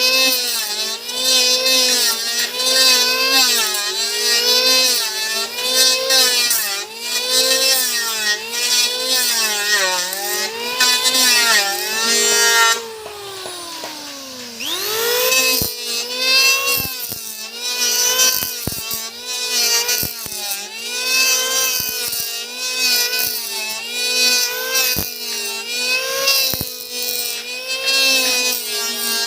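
Electric hand planer running, its motor pitch dipping and recovering about once a second as it bites into wood on repeated passes. About 13 s in it winds down, then spins back up about two seconds later and carries on.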